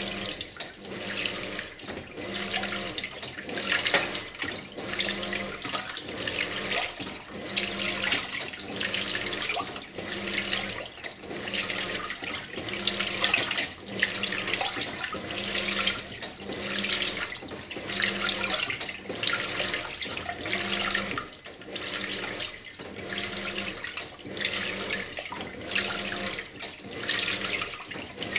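A 2001 Simpson Esprit 550 top-load washing machine agitating. Water sloshes and splashes in the tub over the hum of the drive, rising and falling in a steady rhythm about every two seconds.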